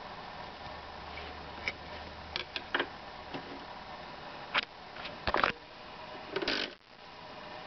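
Steady surface hiss and hum from an old 3-inch phonograph record playing, broken by irregular clicks and pops, with a louder cluster of clicks about five seconds in and a short rough scrape near the end.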